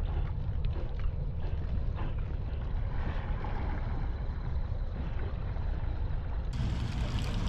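Steady low rumble of wind buffeting the microphone over open water, with a faint wash of water noise and no distinct events.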